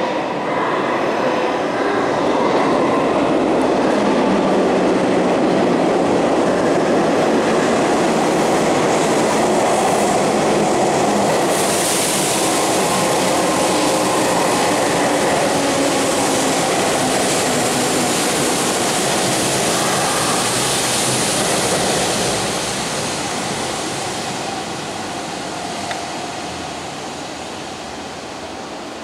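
Hanshin Railway electric train running in along the platform, its wheels and motors making a steady rumble with some wheel clatter. The noise eases off gradually after about 22 seconds as the train slows.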